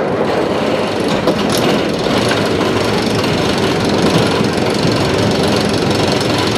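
Lift-hill chain of a Great Coasters International wooden roller coaster running steadily, a dense mechanical clatter as it pulls a train up the lift.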